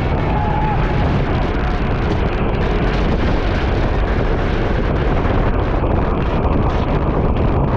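Wind buffeting the microphone, a loud steady rumble with hiss above it, with no break.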